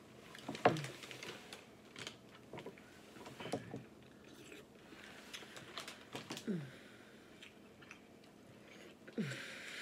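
Close-up eating sounds from a seafood boil: chewing and lip smacks, with scattered small clicks from shrimp shells being peeled and handled.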